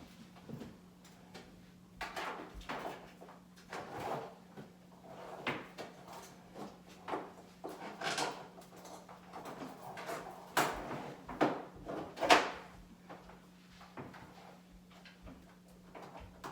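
Irregular knocks, clunks and rattles of a refrigerator and its fittings being handled and fitted into place, with the loudest clunks about ten and twelve seconds in, over a faint steady hum.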